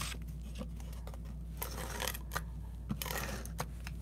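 Paper and cardstock being handled and pressed down onto a card base: soft rustles and a few light taps.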